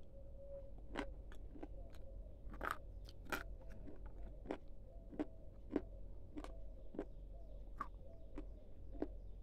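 A person chewing a crunchy snack, close to the microphone: a crisp crunch roughly every half-second to second as the teeth break it up, with a faint steady hum behind.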